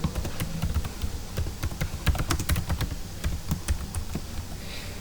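Typing on a computer keyboard: a quick, uneven run of key clicks over a low steady hum.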